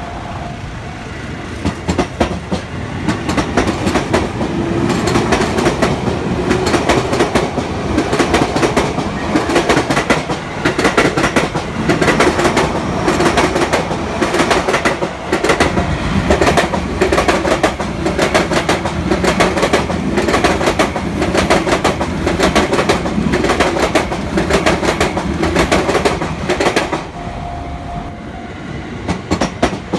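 Train wheels clattering over the rail joints at a level crossing: a rapid, repeating run of clicks and thumps as car after car passes. The clatter eases for a moment near the end.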